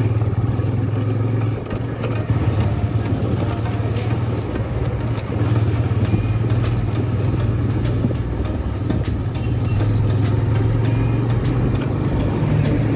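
Motorcycle riding along at a steady speed: a constant low engine drone with wind and road noise.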